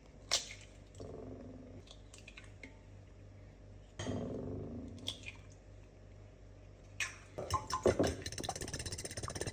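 Eggs being cracked and beaten with a fork in a bowl: a few separate sharp taps and knocks, then from about seven seconds in a fast run of fork-on-bowl clinks as the eggs are whisked.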